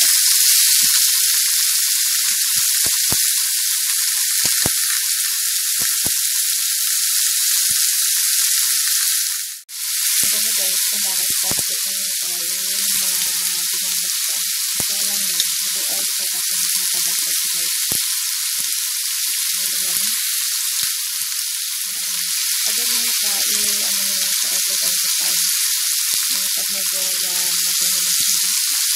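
Chicken thigh pieces frying in hot oil in a nonstick pan: a steady, dense sizzle that drops out for a moment about ten seconds in, with a few light clicks.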